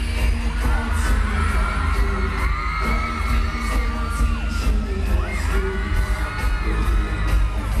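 Boy band's pop song playing live over an arena PA, picked up by a phone microphone: an overloaded, booming bass under a steady drum beat, with high voices singing along over it.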